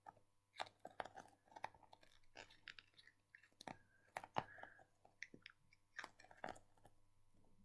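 Faint sticky smacks and peeling clicks of Globbles gel toy balls being squeezed and pulled off the hands, a scatter of short irregular ticks that die away near the end.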